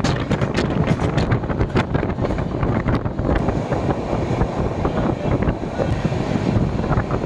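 Dhauli Express passenger train running at speed: a steady rumble of wheels on the rails with rapid clatter and rattling throughout.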